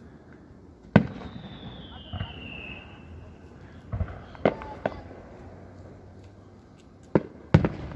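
Fireworks going off, a loud bang about a second in being the loudest. A high falling whistle follows it, then three bangs around four to five seconds in and two more near the end.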